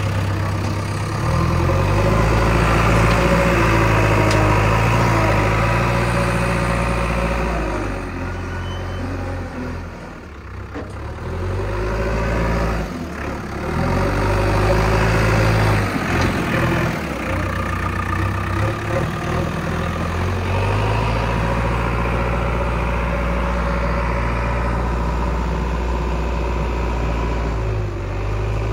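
Heavy vehicle's diesel engine running under changing load, its speed stepping up and down several times with rising and falling whines. It eases off briefly about ten seconds in and again around fifteen seconds in.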